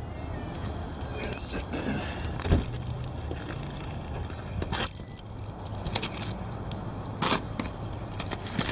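Footsteps on snow-covered outdoor stairs: a few separate footfalls over a steady low rumble.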